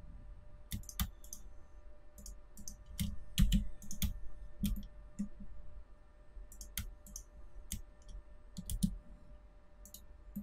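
Computer mouse clicks and keyboard key presses, sharp irregular clicks a few at a time.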